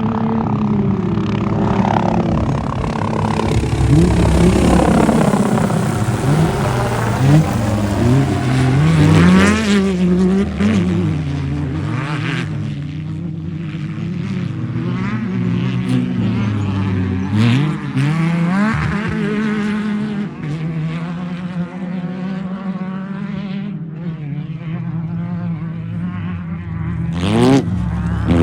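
Off-road race car engines revving hard, their pitch rising and falling again and again as more than one car races by.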